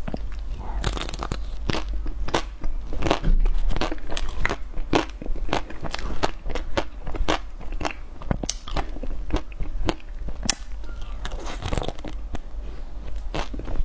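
Close-up bites and chewing through the hard, crackly shell of a coated ice cream bar: many sharp crunches and crackles, several a second, with wet chewing between them.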